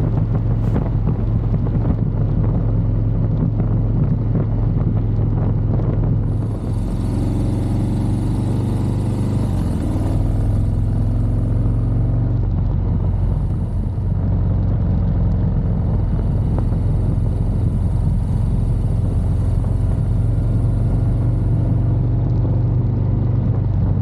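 Air-cooled Harley-Davidson V-twin motorcycle engine running steadily under way, with wind and road noise over it. The engine briefly dips twice, about seven and fourteen seconds in.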